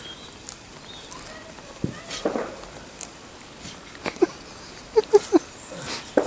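Backyard chickens clucking: a quick run of short clucks about four to five seconds in, with scattered small clicks.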